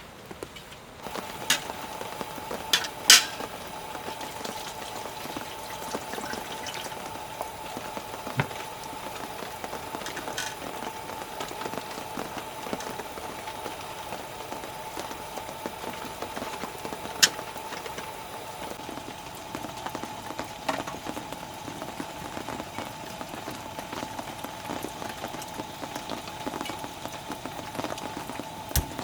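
Food cooking on a camp gas burner: a steady sizzling hiss with a faint steady tone, broken by a few sharp clinks of utensils.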